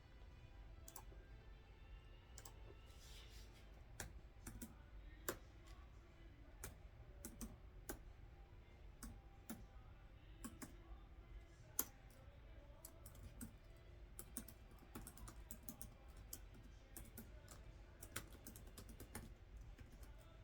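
Faint typing on a computer keyboard: separate key clicks at irregular intervals, coming in quicker runs in places.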